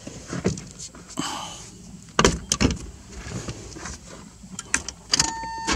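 Clicks, knocks and rattles of a Chevrolet pickup's ignition being worked with vise grips, with the loudest clicks about two seconds in. About five seconds in, a sharp click sets off a steady whine and low rumble as the starter cranks the 350 V8 for a cold start.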